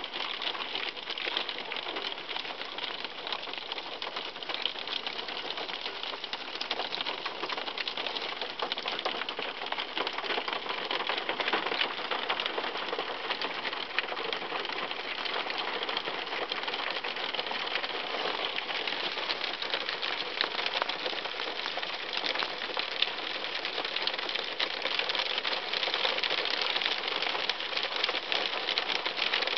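Hail hitting a car's roof and windshield, heard from inside the car: a dense, steady clatter of tiny ticks that grows a little louder near the end.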